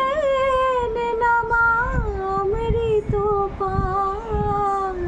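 A woman's solo voice singing a slow Bengali devotional song to the goddess Kali, drawing out long held notes that waver and bend between words.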